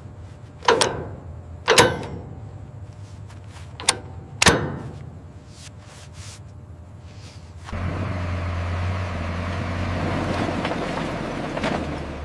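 Four sharp clanks, each with a short ring, the second and fourth the loudest; about eight seconds in, a steady rumbling noise with a low hum starts abruptly.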